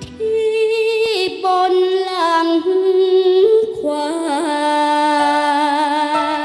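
A young girl singing a Thai song solo into a microphone, the backing music dropping out at the start so her voice carries almost alone, in long held notes with a wavering vibrato.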